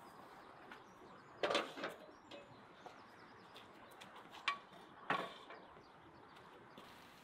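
Cookware being handled and set down: a handful of sharp clatters and knocks, about four in all, one with a short metallic ring, over a steady low hiss.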